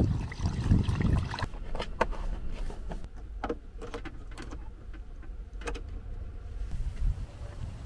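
Rice being swished by hand in water in a rice cooker pot for about the first second and a half. Then a few light clicks and knocks as the cooker's cord is plugged into a 12-volt socket and its switch is pressed.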